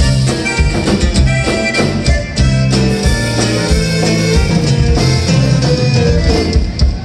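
A conjunto band playing live: button accordion carrying the tune over strummed guitar and a drum kit keeping a steady beat.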